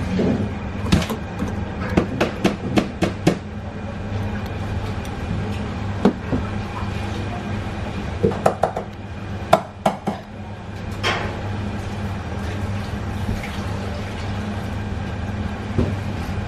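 Kitchen knife work over a steady low hum: a quick run of sharp clicks and knocks in the first few seconds and another cluster around the middle, from the knife and utensils against the fish and cutting board.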